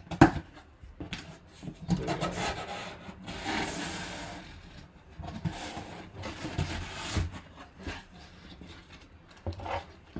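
Packaging handled while a memorabilia box is unpacked: a run of rubbing, scraping and rustling with scattered knocks.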